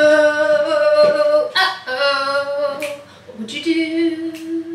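A woman singing unaccompanied, in three long held notes with short breaks between them.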